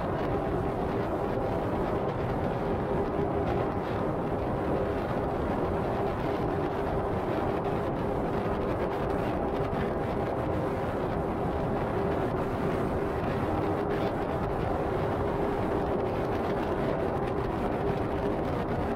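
Steady road noise of a car driving at highway speed: tyres running on the bridge's textured concrete deck, with a constant low hum.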